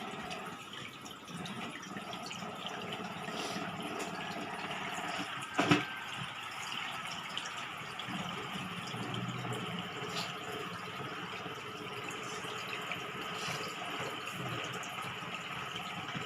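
Aquarium water running and trickling steadily, with one sharp knock about five and a half seconds in.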